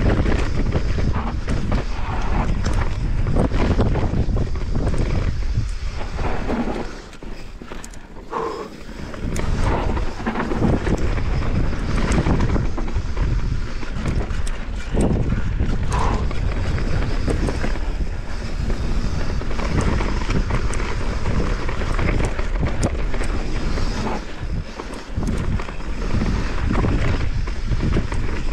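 Wind buffeting a helmet or bike-mounted camera's microphone, mixed with the constant knocks and rattles of a Santa Cruz Megatower full-suspension mountain bike hammering over rough dirt and roots at speed. The noise dips briefly about seven seconds in, then picks up again.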